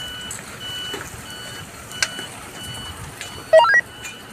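A vehicle's reversing alarm beeps steadily, about one and a half beeps a second. Near the end comes a short, loud rising chirp, and about halfway there is a single sharp click.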